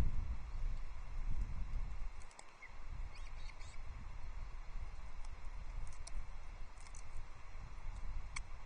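Wind buffeting an outdoor nest-camera microphone, a low unsteady rumble, with a few faint high chirps or ticks over it.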